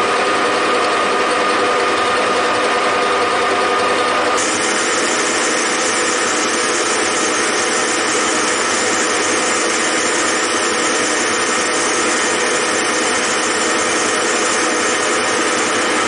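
Metal lathe running steadily while a tool on the angled top slide turns a taper on a center held in the spindle. A high steady whine drops away about four seconds in.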